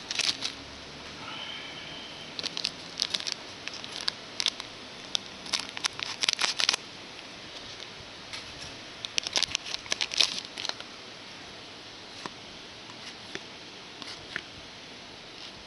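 Trading card pack being opened and the cards handled: the wrapper crinkles and the cards click and slide in three short bursts of crackling, with a few lighter clicks near the end.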